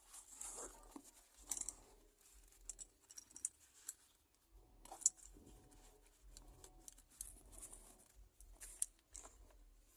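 Faint rustling of paper with scattered small clicks and taps, from handling a notebook and pen.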